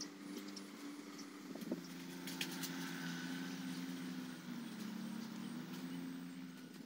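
A motor engine running steadily with a low, even hum, its pitch dipping slightly about four and a half seconds in.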